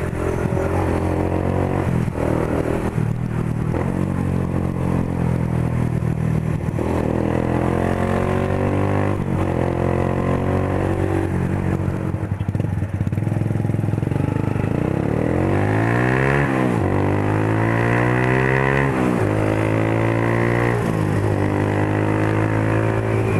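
Motorcycle engine running under way, a steady note that is revved up and back down a few times in the second half.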